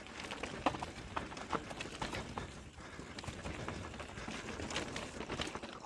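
Mountain bike clattering down a rock garden: irregular knocks and rattles of tyres, chain and frame jolting over rocks, over a steady rushing noise.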